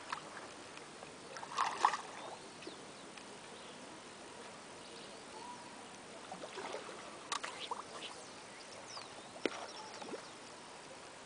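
Faint splashing of a hooked fish thrashing at the pond surface while it is played on a spinning rod. A few short clicks and knocks, the loudest about two seconds in, sound over a steady outdoor hiss.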